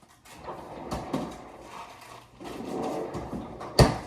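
Light rustling and clattering of things being handled, with a sharp knock near the end.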